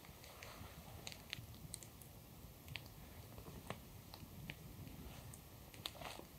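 Log campfire crackling faintly, with scattered, irregular sharp pops.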